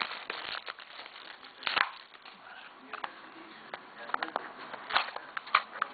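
Hands unwrapping and handling Topps Triple Threads trading-card pack packaging: irregular crinkling and rustling of wrapper and cardboard, with sharp clicks and snaps, the loudest about two seconds in and near the end.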